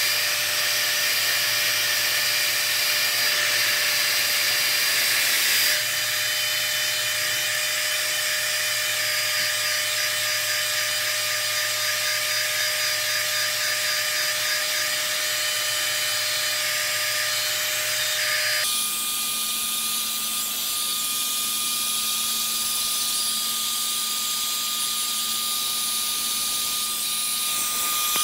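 Hand-held hair dryer running steadily, a whine over rushing air, blowing a towel-wrapped dog dry. About two-thirds of the way in, its tone changes abruptly to a lower, different steady hum.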